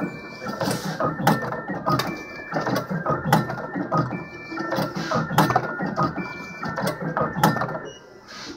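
Automatic cable cutting and stripping machine running through its cutting cycle: rapid mechanical clicks and clacks, with a short high whine that comes back about every two seconds.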